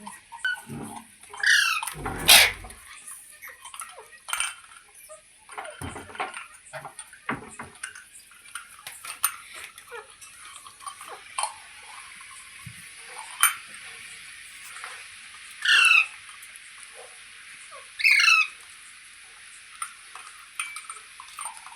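A green ringneck parakeet giving three short, harsh squawks: one about a second and a half in, then two more a couple of seconds apart near the end. A loud knock comes just after the first squawk, with small clicks between the calls.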